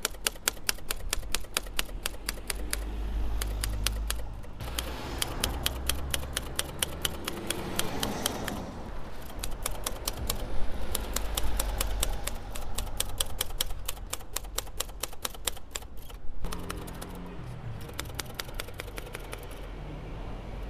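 Old typewriter being typed in fast, even runs of key strikes, the same keys hit over and over, with a few short breaks between runs.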